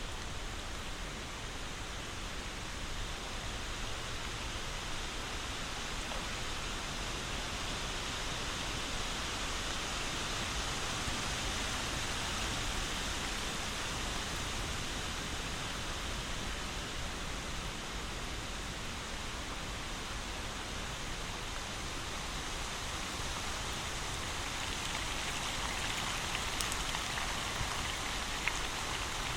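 Steady rain falling, an even hiss of many drops, with a few sharper drip ticks near the end.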